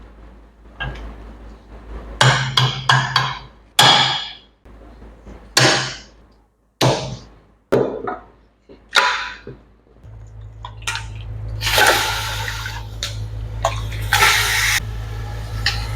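Metal pots and utensils knocking and clinking against each other several times, each strike ringing briefly. About ten seconds in, a steady low hum with a rushing, watery noise starts and runs on.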